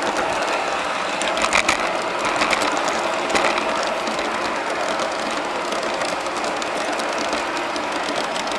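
1:29-scale model train cars rolling along garden railroad track: a steady rattling whir of wheels on the rails, with a few sharper clicks between about one and a half and three and a half seconds in.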